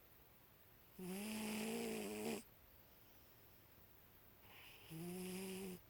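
A sleeping cat snoring: two drawn-out, pitched snores, the first about a second in and lasting over a second, the second near the end, with quiet breathing between.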